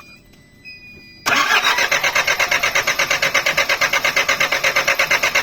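Car engine cranking on the starter motor, starting suddenly about a second in and turning over in an even pulse of about eight beats a second without catching. This is a hard start, blamed on the fuel pump.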